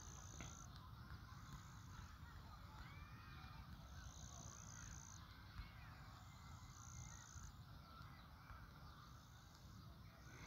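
Near silence: faint background with a few faint, distant bird calls and a thin high tone that comes and goes several times.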